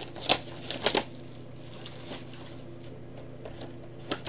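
Hands opening a cardboard trading-card box: a few sharp crinkles and taps in the first second, then a couple of softer clicks near the end, over a steady low hum.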